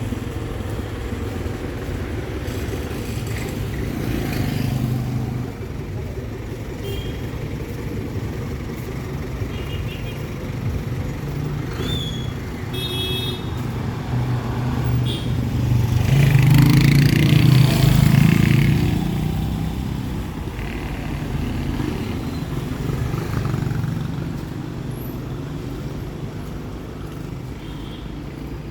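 Town street traffic: engines of cars and motorcycles running past, with one vehicle passing close and loud around the middle, and brief higher chirps or beeps a little before it.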